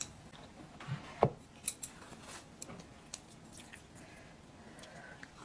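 Chopsticks clicking and tapping as food is picked up from the dishes: a few short, sharp clicks, the loudest about a second in.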